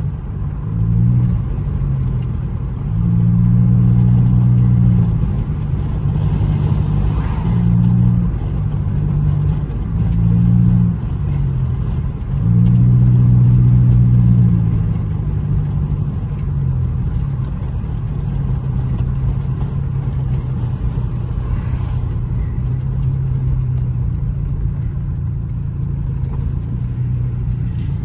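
Inside a lowered Honda Accord while driving: the engine and road noise hum steadily, with the engine note rising and falling with the throttle for the first half, then settling into a steadier, lower drone.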